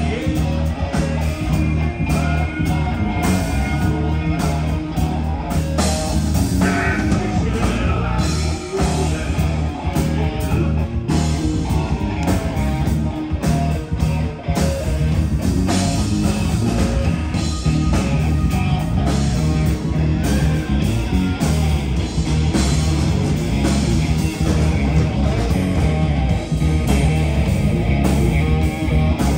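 Live rock band playing loud and steady, with electric guitars, bass and a drum kit.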